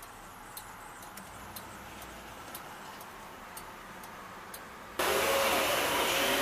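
Faint hiss with a soft tick about once a second. After a sudden cut about five seconds in, loud steady vehicle noise.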